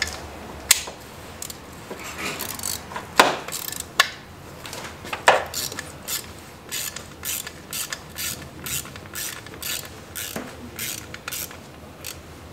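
Socket ratchet on a long extension clicking as it is worked back and forth on a bolt in an engine bay. A few louder knocks come in the first half, then steady clicking at about three strokes a second.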